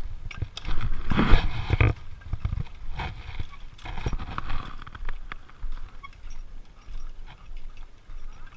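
Knocks and clinks from a climber going up a rope ladder with wooden rungs: shoes and rungs bumping and harness hardware rattling. A louder burst of noise comes about a second in.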